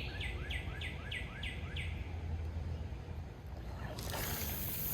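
A songbird singing a fast series of repeated down-slurred whistled notes, about four a second, which stops about two seconds in. A steady low rumble runs underneath, and a broad hiss comes up about four seconds in.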